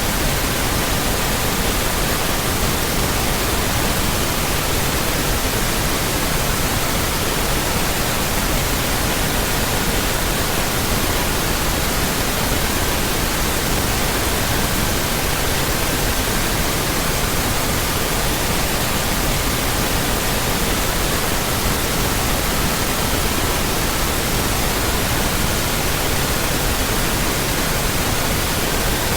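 Steady pink noise hiss with faint pure tones at 1200, 1320, 1440 and 1555 Hz laid in, the tone switching to another of these pitches every few seconds.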